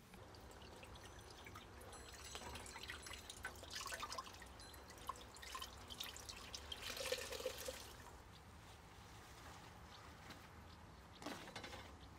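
Dye water trickling and dripping from a hand-wrung cloth into a stainless steel pot, in irregular splashes that are loudest about seven seconds in. A short splash or rustle comes near the end.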